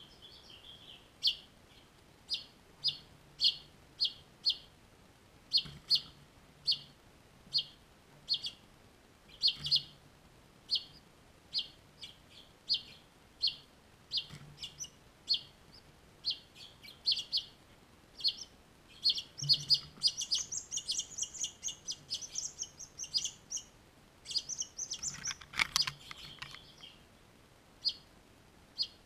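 Finches chirping at a nest of fledglings: short, high single chirps about one or two a second, thickening into a rapid run of higher calls about twenty seconds in and a louder flurry a few seconds later.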